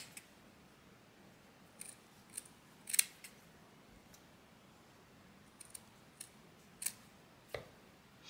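Scissors snipping through the knit fabric of a sock toe, cutting it into small strips: about ten short, separate snips at uneven intervals.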